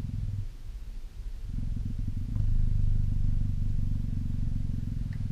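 African cheetah purring steadily in fast low pulses as she is stroked. The purr dips about half a second in and comes back stronger a second later.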